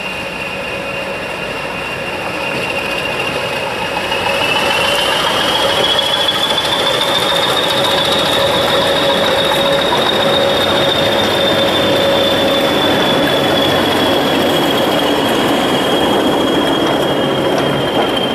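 A diesel-hauled passenger train of coaches runs into the station and past, its engine running under a long high squeal from the train's running gear. The squeal rises in pitch a few seconds in as the train gets louder, then holds.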